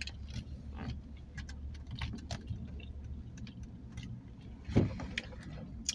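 Low steady hum of a car's interior, with scattered small clicks and rustles and one short louder sound near five seconds in.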